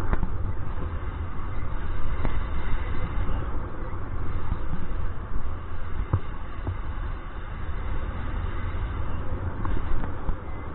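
Wind buffeting the camera's microphone in paraglider flight: a low rumble that rises and falls in gusts, with a few short knocks.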